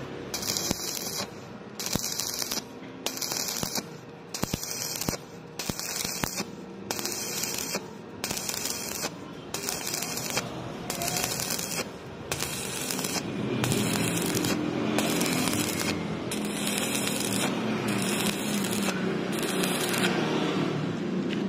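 Stick (SMAW) welding arc crackling in short bursts, about one and a half a second, as the coated electrode is struck and broken off again and again to bridge a wide gap in thin steel tube. In the last several seconds the bursts run closer together.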